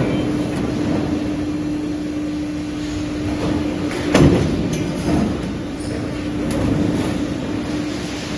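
Metal stamping press in a factory, running with a steady hum. One heavy thud of a press stroke comes about four seconds in, followed by a few lighter metallic clicks.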